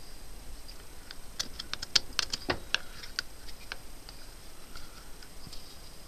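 A quick, irregular flurry of small clicks and taps, densest in the middle, over a faint steady high whine.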